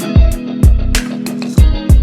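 Background music with a beat: deep thumping kick drums that drop in pitch and sharp percussive hits over a held bass note.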